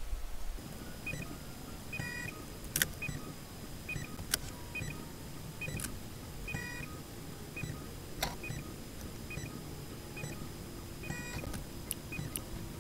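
Snapmaker 2.0 3D printer's stepper motors moving the toolhead in a series of short moves: a low whir with short high chirps repeating about once a second, and a few sharp clicks.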